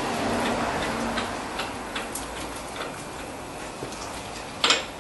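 Scattered light metallic clicks and taps as the mounting bolts and the new front hub bearing are handled and the bolts are started by hand into the steering knuckle, over a steady hiss. There is a sharper click near the end.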